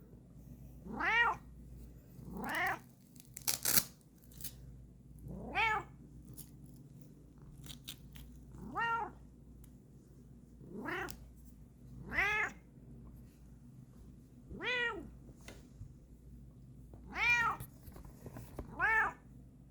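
Bengal cat meowing over and over, about nine separate short meows, each rising and then falling in pitch.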